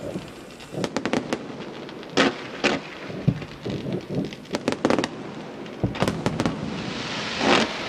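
Fireworks display: an irregular series of shell bursts and quick crackling reports, with deeper booms about three and six seconds in.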